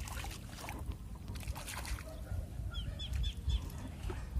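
Small splashes and clicks of wading and handling shells in shallow water over a steady low rumble. About three seconds in, a bird gives a quick run of four short chirps.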